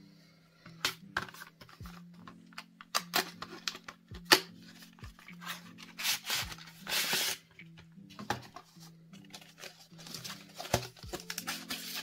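Cardboard and paper phone packaging handled close to the microphone: scattered taps and clicks, and a longer scraping rustle about seven seconds in. Soft background music plays under it.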